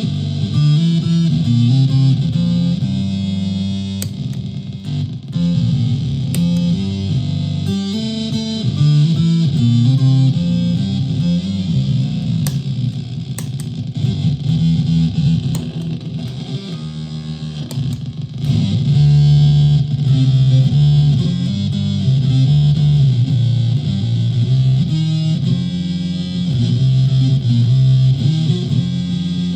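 Solid-body electric ukulele played continuously through a home-built clone effects pedal and amp modeler into a PA speaker, giving an electric-guitar-like effected tone; the playing eases off briefly past the middle, then comes back louder.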